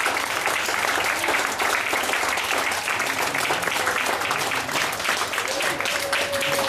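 Audience applauding: many hands clapping in a steady, dense clatter.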